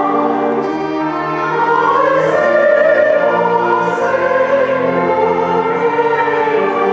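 Choir singing a slow sacred song in long held notes, swelling louder in the middle, with soft 's' sounds of the words.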